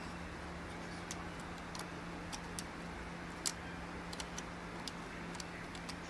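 Light, irregular clicks and ticks from fingers handling a small circuit board and pressing it into a plastic housing, the loudest about three and a half seconds in, over a steady low hum.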